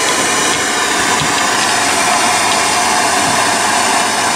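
Steady hissing rush of a MAP gas torch flame, left burning after heating the connecting rod's small end for a heat-press wrist pin fit.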